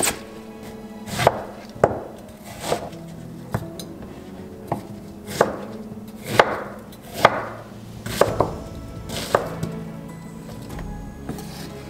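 Cleaver-style kitchen knife cutting green onions and then an onion on a wooden cutting board. The separate knife strikes against the board come about one a second, some with a short crunch, and stop shortly before the end.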